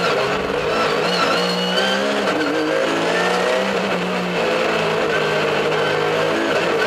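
Porsche Carrera Cup race car's flat-six engine heard from inside the cockpit at racing speed, its pitch climbing under acceleration and dropping on lift-off and gear changes.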